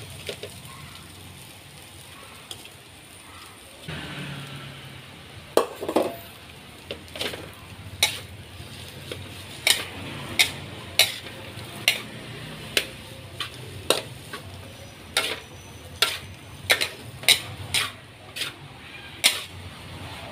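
Spatula knocking and scraping against a thin aluminium wok while rice is stir-fried with egg and peas, over a faint sizzle. Sharp clacks come irregularly, about one or two a second, from about five seconds in.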